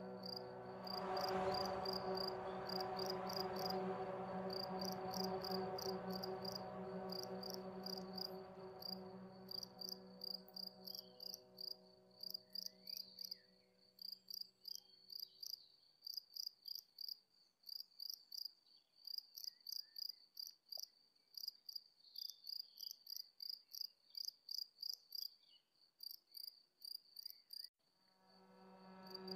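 Cricket chirping in steady rhythmic trains at one high pitch, over a soft sustained synth-like drone chord that fades away about halfway through and swells back in near the end.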